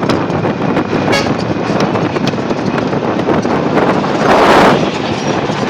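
Jeepneys and other road traffic passing on a street, with engine and road noise throughout. A louder rush of noise comes about four seconds in.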